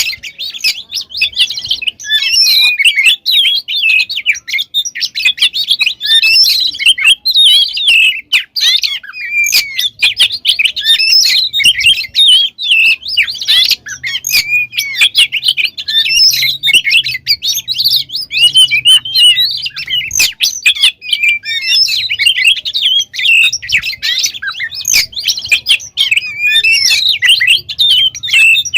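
Oriental magpie-robin (kacer) singing without a break: a fast, varied warble of sharp chirps, whistles and clicks, full of imitated phrases.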